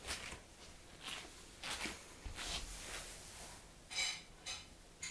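Small penknife cutting open a cardboard printer box: a run of short scrapes and rustles of blade on tape and cardboard, the loudest a brief rasp about four seconds in.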